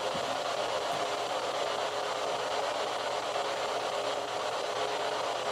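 Steady, even hiss with a faint low hum and no other distinct sound.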